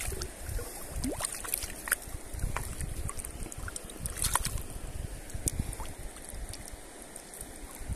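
Water sloshing and trickling close to the microphone, with wind rumbling on the microphone and scattered small clicks and splashes.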